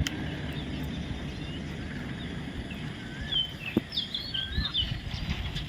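Parrots chirping: short whistled calls that crowd together a few seconds in, over a steady background noise with an occasional click.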